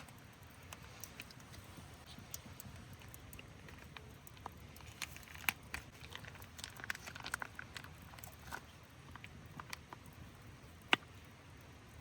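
Wood campfire crackling faintly, with scattered irregular small pops and one sharper pop near the end.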